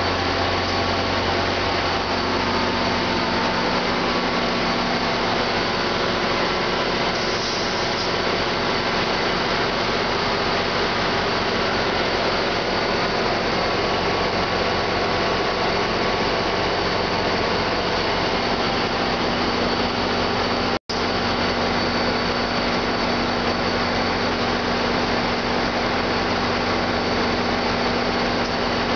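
NJ Transit diesel locomotive running at idle close by: a loud, steady drone with a hiss over it. The sound cuts out for an instant about three-quarters of the way through.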